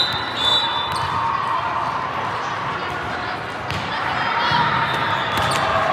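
Indoor volleyball game in a sports hall: players' and spectators' voices echoing in the hall, with a few sharp knocks of ball or court impacts and short high squeaks.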